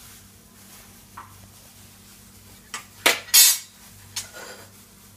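Dishes clinking on a table: a faint click, then a cluster of sharp clinks a little past the middle, the loudest about three and a half seconds in, and one more shortly after.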